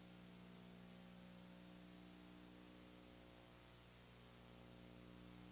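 Near silence: a faint steady electrical hum with an even background hiss.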